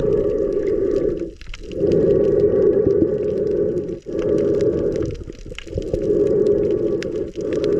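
Muffled rushing water noise picked up by a camera held underwater, coming in surges a second or two long with brief breaks about four times.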